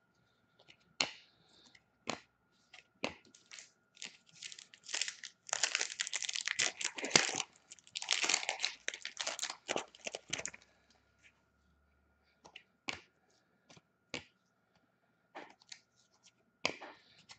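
A hockey card pack's foil wrapper being torn open and crinkled, in two dense crackling stretches midway. Scattered sharp clicks and snaps of cards being handled come before and after.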